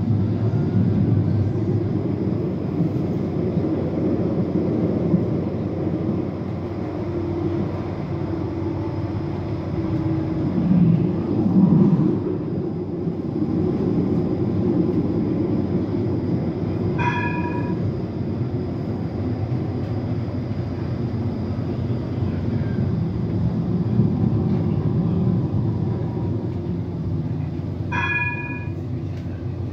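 Interior running noise of a Bombardier/Alstom TNG low-floor tram travelling along its track: a steady low rumble of wheels and drive, swelling briefly a little before the middle. Two short ringing chimes sound, one past the middle and one near the end.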